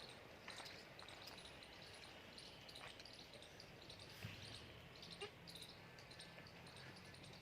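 Near silence: faint background ambience with a few soft clicks and faint high chirps, and a low hum coming in about halfway.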